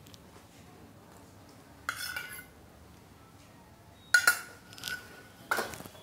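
A metal spoon clinking against dishes four times while tomato sauce is spooned out; the loudest clink, a little after four seconds, rings briefly.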